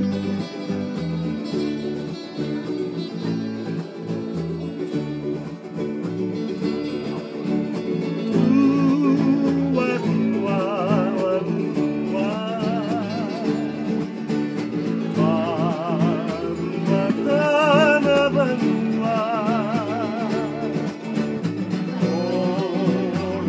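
Acoustic guitars strummed in a steady rhythm. About eight seconds in, singing comes in over them, a melody with a strong wavering vibrato.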